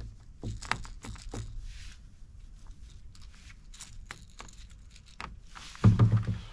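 Bass splashing and thrashing at the water's surface beside a kayak as it is grabbed by hand, a scatter of small splashes and knocks, with a loud thump near the end.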